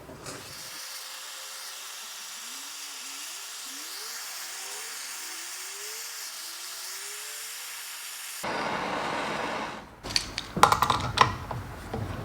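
A heating tool runs with a steady hiss, warming a flow-switch fitting locked on with red Loctite so that it will break loose. The hiss gets louder about eight seconds in and stops about two seconds later. A run of sharp metal clanks from tools on the part follows.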